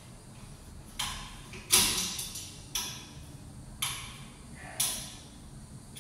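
Five sharp metallic clicks, roughly one a second, each ringing briefly, the second the loudest: a metal window grille being worked into place against an aluminium window frame by hand.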